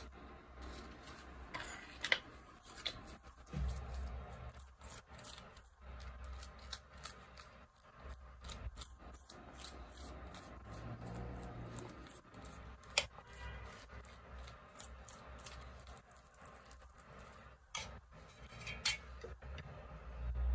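A utensil scraping sauce across a flatbread and clicking against a steel plate: faint scraping with scattered sharp clicks, a few louder ones, over a low steady hum.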